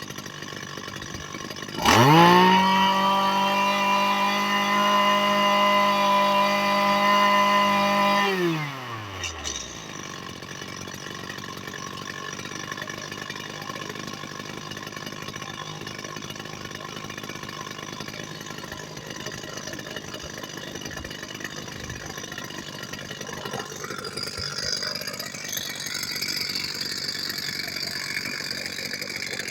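Zenoah TRZ265 brush cutter's small two-stroke engine idling, then revved sharply to full throttle about two seconds in, held at a high steady pitch for about six seconds and let fall back to idle, where it runs on. The seller describes this engine as making an abnormal noise.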